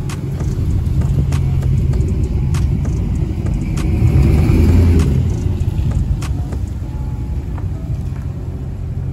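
Dodge Ram pickup's engine running at low speed as the truck is driven slowly and repositioned, a steady low rumble that swells briefly about four to five seconds in.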